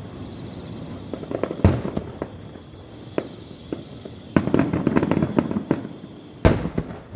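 Fireworks going off: two sharp bangs about five seconds apart, with spells of rapid crackling pops between them.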